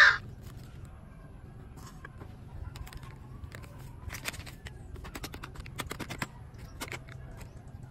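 A short, sharp sound right at the start, then a run of crisp crinkles and clicks from a plastic milk-powder sachet being handled and shaken out over a bowl of flour, over a low steady hum.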